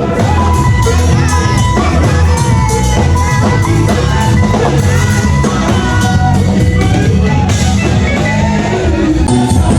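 Music with a band of drums and guitar under a singing voice, at a steady loud level.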